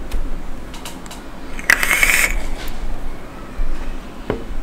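An electronic cigarette (vape) being drawn on: a hissing draw of about half a second roughly two seconds in, with a few small clicks around it.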